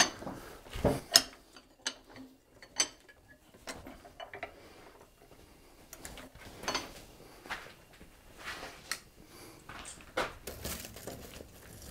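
Scattered metallic clinks and clanks of blacksmith's tongs handling a twisted steel bar at a vise, with a sharp clank about a second in.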